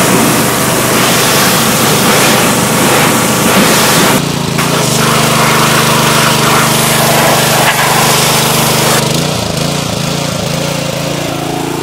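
Troy-Bilt Flex 208 cc power-base engine running loud under load, driving the pressure washer, with the high-pressure water jet hissing against the mower deck. The spray drops out briefly about four seconds in. About nine seconds in it eases off and the engine note wavers.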